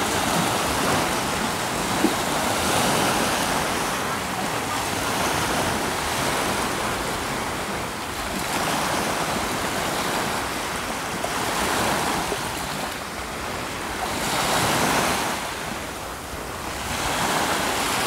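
Small surf washing onto the Sea of Azov shore, the noise of the breaking water swelling and falling back every few seconds, with some wind on the microphone.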